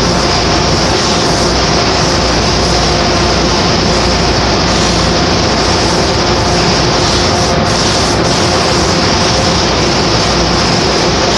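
Steady, loud hiss and hum of a spray-coating booth: the compressed-air spray gun spraying coating onto metal castings, over the booth's running extraction fan.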